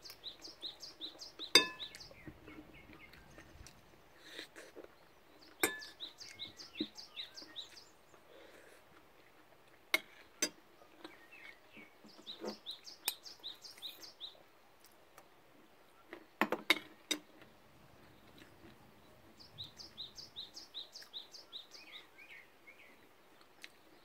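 A songbird singing a phrase of rapid, evenly repeated high notes about two seconds long, four times, every six or seven seconds. A few sharp clinks of a metal spoon against a dish are louder than the song.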